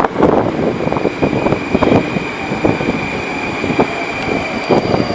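Moscow Metro 81-717.6/714.6 train running on the rails: a continuous rumble with irregular clattering knocks, over a steady high whine.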